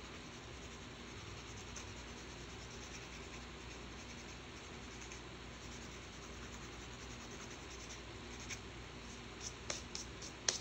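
Nail file scraping across a fingernail in quick, light back-and-forth strokes. Near the end come a few sharper, louder rubs as the hands brush off the filing dust.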